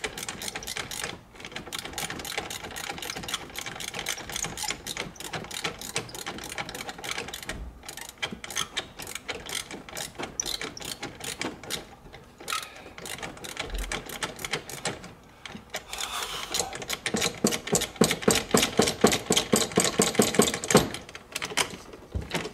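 Ratchet wrench clicking rapidly, stroke after stroke, as it slowly undoes a nut behind a classic Mini's dashboard that needs many turns to come off. The clicking grows louder and faster-paced for a few seconds near the end.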